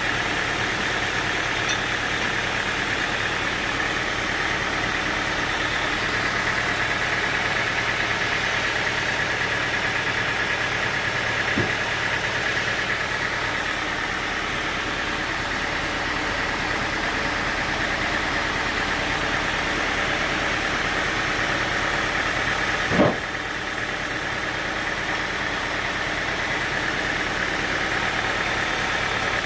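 Sawmill machinery running steadily with an engine-like drone, with a faint click near the middle and a single sharp knock about three quarters of the way through.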